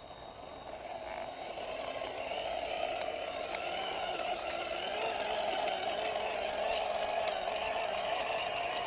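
Small electric motor and gearbox of a model RC Land Rover whining steadily as it drives across grass, heard close up. The whine swells over the first few seconds and then holds at a steady pitch.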